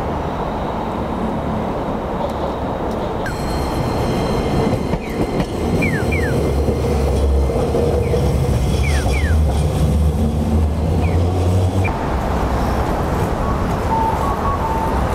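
Street tram of the Toden Arakawa Line passing with a deep rumble that swells for several seconds, along with a few short, falling high squeals. The tram sound starts abruptly about three seconds in and cuts off abruptly near twelve seconds, with city traffic hum either side. A few short electronic beeps come near the end.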